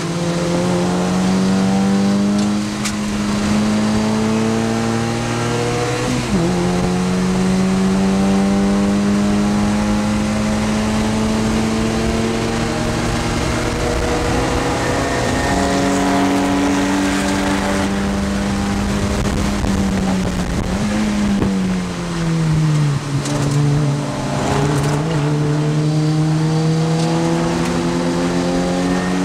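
Mazda MX-5 race car's four-cylinder engine heard from inside the cockpit, pulling at high revs with its pitch climbing slowly, and dropping and rising again a few times as the driver changes gear. About three-quarters of the way through, the revs fall away with short throttle blips as the car slows for a corner, then climb again, over constant wind and road noise.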